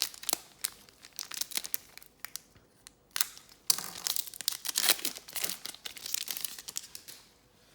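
Foil wrapper of a trading card pack crinkling and tearing, with cards being handled in quick, sharp clicks and rustles, densest in the middle of the stretch.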